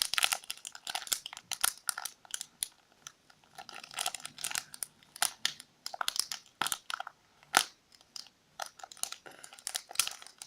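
A cornstarch package being opened by hand: irregular crinkling, crackling and tearing of the packaging.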